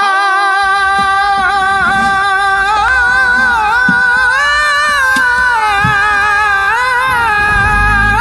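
Background music: the slow opening of an Islamic devotional song (hamd), with a long, wavering melodic line sung in held notes.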